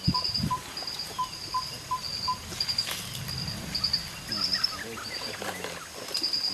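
Tropical forest ambience: a high chirp pulses steadily throughout, and a short pitched note repeats about three times a second for the first two seconds.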